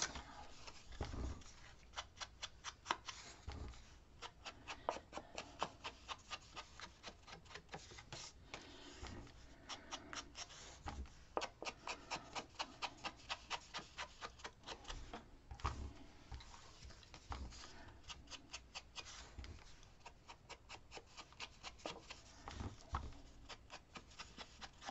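Small ink blending tool being brushed along the edges of cut scrapbook paper pieces to ink them: faint runs of quick strokes, about four or five a second, with short pauses between runs.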